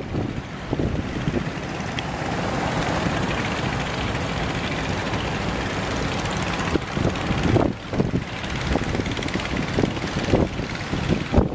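A fishing boat's engine running, heard through heavy wind buffeting the microphone; the noise swells and holds steady for a few seconds in the middle, then turns gusty again.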